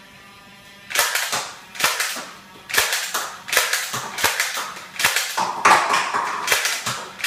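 Nerf Stockade dart blaster firing shot after shot, about one sharp snap every second, starting about a second in, with darts knocking into a stack of plastic cups.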